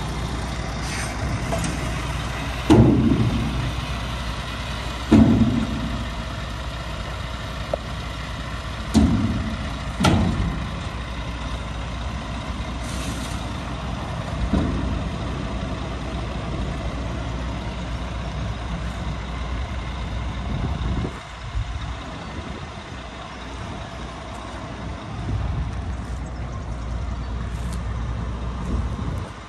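Scania P370 truck's nine-litre five-cylinder diesel running with a steady low hum. Five sudden loud bursts break in over the first half, each falling in pitch as it fades, and the hum drops back for a moment about two-thirds of the way through.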